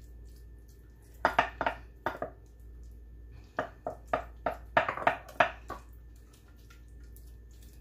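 Silicone basting brush dabbing yogurt marinade onto raw chicken in a stoneware baking dish, giving a series of short clicks and knocks against the dish. They come in two clusters, one about a second in and another from about three and a half to six seconds.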